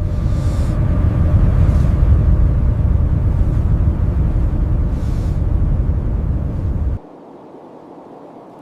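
A loud, low rumbling roar that cuts off abruptly about seven seconds in, leaving a quieter steady hiss.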